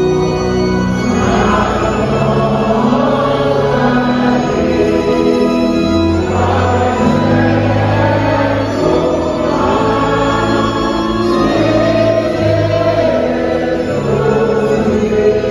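Church congregation singing a hymn together, accompanied by an organ playing sustained chords.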